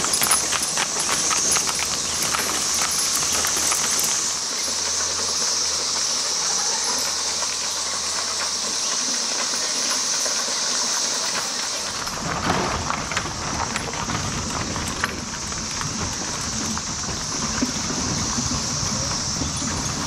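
Horse hooves clip-clopping on the road, with a steady high-pitched chorus of periodical cicadas running underneath. The hoof clicks are densest in the first few seconds, and a broader, lower noise comes in about twelve seconds in.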